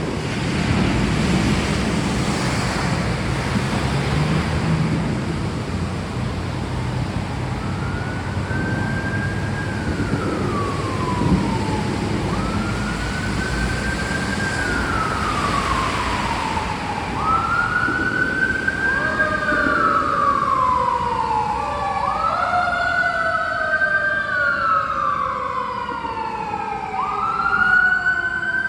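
Steady rain with a wailing siren coming in about eight seconds in. Each wail rises quickly and falls away over about three seconds. The siren grows louder, and in the second half a second siren wails out of step with the first.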